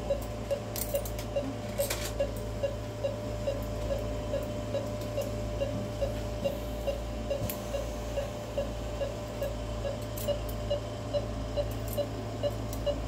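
Anaesthesia patient monitor beeping in time with the dog's heartbeat: a short, even, mid-pitched beep about twice a second, over a steady low hum from the surgical equipment, with a few faint clicks of surgical instruments.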